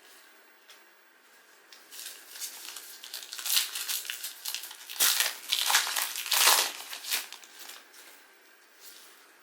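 Plastic wrapper of a trading card pack being torn open and crinkled by hand. The crackling builds after a couple of seconds, is loudest in a few hard scrunches midway, then dies away.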